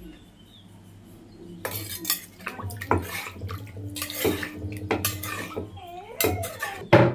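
Pestle knocking in a mortar, pounding sour-curry paste with boiled fish meat: irregular knocks about twice a second, starting about a second and a half in, with the loudest knock near the end.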